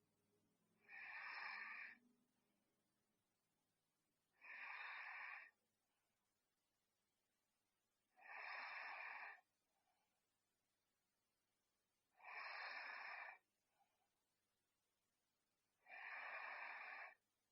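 A sleeping person breathing softly: five airy breaths, each about a second long, coming evenly about every three and a half seconds, without a snoring rattle.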